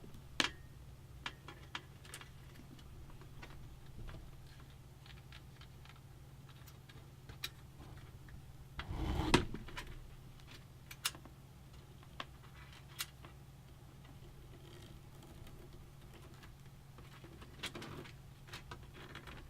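Scattered light clicks and taps, with a brief louder rustle about nine seconds in, from cables being handled and bundled inside a computer case, over a steady low hum.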